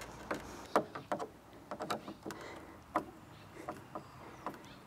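Scattered faint clicks and light taps, irregularly spaced, from hand work on bimini mounting-bracket hardware as the screws and fittings are set in place.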